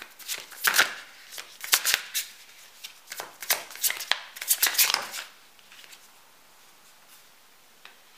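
A tarot deck being shuffled by hand: a run of quick, crisp rustling flicks of the cards that stops about five seconds in.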